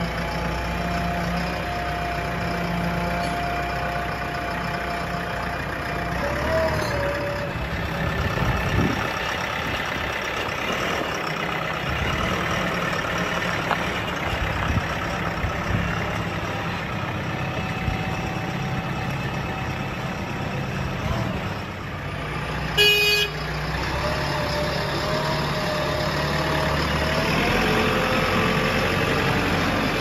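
JCB 3DX backhoe loader's diesel engine running steadily, with one short horn beep about three-quarters of the way through.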